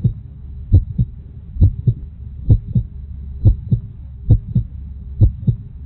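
Heartbeat: paired low thumps, lub-dub, repeating steadily about once every second over a low hum.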